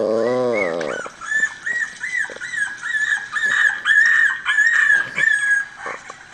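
Dog whimpering: a run of short, high-pitched cries, about two a second, after a lower, longer cry in the first second.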